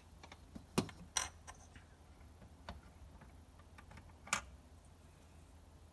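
LEGO plastic pieces clicking and knocking together as they are handled and fitted, a few sharp clicks among softer taps.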